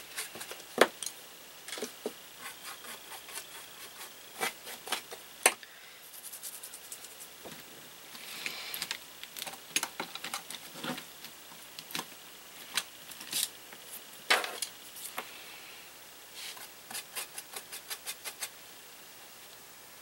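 Paintbrush tapping, clicking and scraping against plastic paint pots and a palette while paint is loaded and worked: irregular sharp taps with softer rubbing between them, and a quick run of taps near the end.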